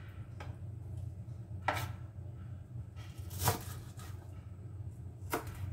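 A sharp kitchen knife cutting garlic chives on a cutting board: a few separate knife strokes, the three loudest nearly two seconds apart, over a steady low hum.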